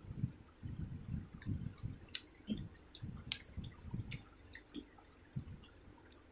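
Someone eating a crispy fried egg by hand: irregular soft, wet chewing and squishing sounds, about three a second, with a few sharp little clicks.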